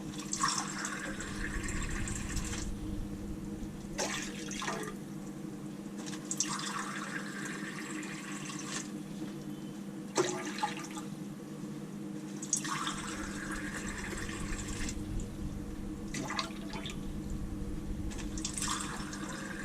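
Water poured into a cooking pan in separate cupfuls, each pour lasting two to three seconds, with short knocks between pours. A steady low hum runs underneath.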